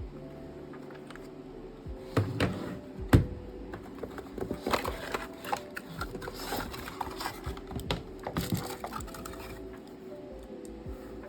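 A run of sharp clicks, knocks and crackling, as of hard plastic parts and packaging being handled, with the loudest knock about three seconds in, over faint background music.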